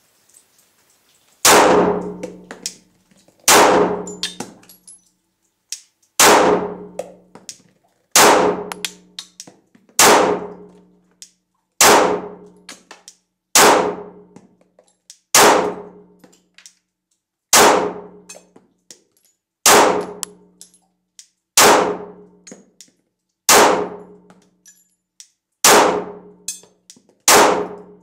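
Glock 19 Gen 4 9mm pistol firing slow, single aimed shots, about one every two seconds, fourteen in all, each followed by a ringing tail.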